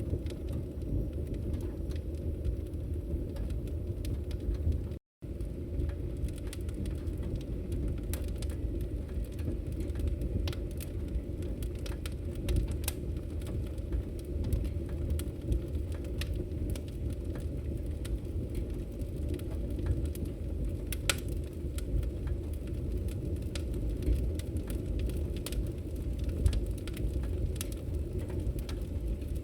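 Wood fire burning in a fireplace: a steady low rumble of flames with frequent sharp, irregular crackles and pops. The sound briefly cuts out about five seconds in.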